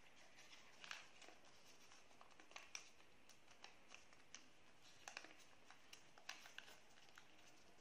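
Faint rustling and irregular soft ticks of a sheet of origami paper being handled, folded inward and creased by fingers.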